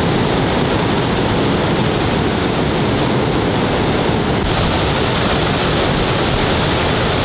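Steady, loud roar of Niagara Falls' cascading water close by, with wind on the microphone; the hiss turns brighter about four and a half seconds in.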